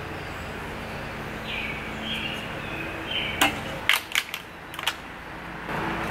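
A plastic plant nursery pot handled and squeezed while a plant is worked out of it for repotting: a few sharp plastic clicks and crackles about halfway through, over steady outdoor background noise.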